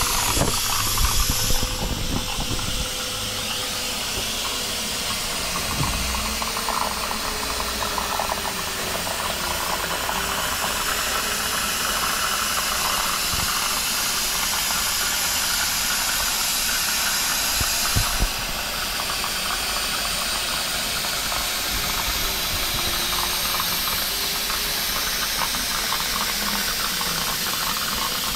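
CNC plasma table's torch cutting 2 mm stainless steel sheet: a steady, loud hiss of the plasma arc and its air, the arc having struck again after the restart. A faint tone rises and falls in pitch underneath.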